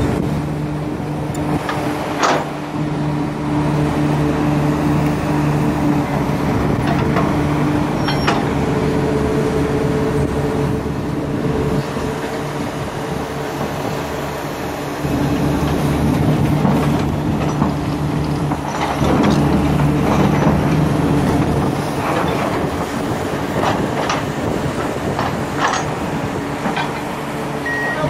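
Komatsu hydraulic excavator's diesel engine running under load as it digs and swings soil into a dump truck, its steady note getting louder about halfway through, with a few sharp knocks. A truck's reversing beeper starts at the very end.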